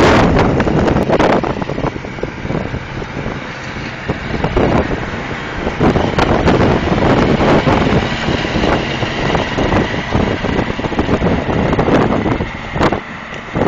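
Wind buffeting the microphone over the engine of a lifeboat launch tractor towing the boat on its trailer.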